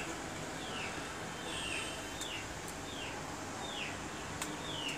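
A small bird chirping in the background: a steady run of short, high, falling chirps at an even pace, with a few faint clicks.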